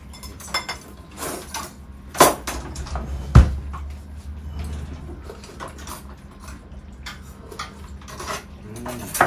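Tableware clattering during a meal: bowls and utensils clinking and knocking at irregular moments, with two louder knocks, the loudest about three and a half seconds in, over a low steady hum.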